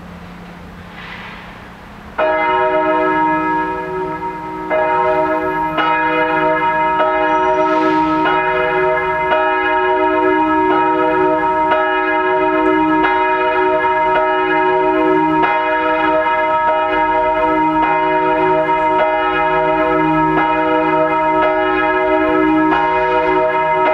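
A single swinging church bell, the 1,543 kg Rincker Reformation bell tuned to E-flat, begins ringing about two seconds in. After its first stroke it settles into a steady swing, striking a little more than once a second, each stroke ringing on into the next.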